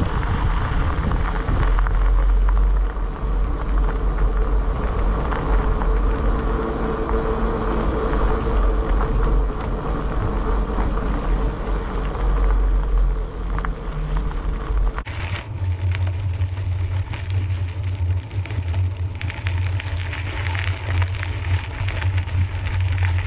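Bicycle tyres rolling over a gravel road, with a steady low rumble of wind on the bike-mounted camera's microphone. The rumble changes suddenly about fifteen seconds in.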